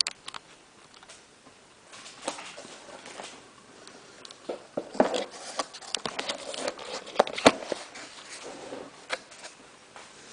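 Scattered light clicks, taps and rustles of a child eating, such as a utensil on a dish and mouth noises, busiest in the middle with a sharper click near the end.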